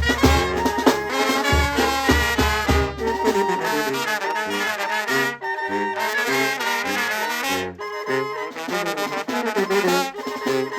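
Live brass band music: trumpets and trombones play a lively melody together. A bass drum thumps steadily under them for the first three seconds or so, then drops out.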